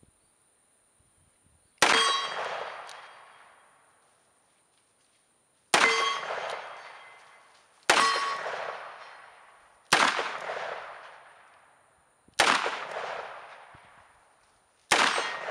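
Six shots from a Smith & Wesson .44 Magnum revolver firing hot 320-grain hard-cast loads, spaced about two to four seconds apart. Each is a sharp crack followed by a long fading echo.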